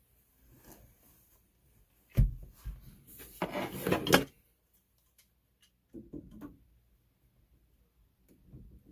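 Handling of plumbing parts and tools at close range: a sharp knock, then about a second of scraping and rubbing, then a few quieter knocks.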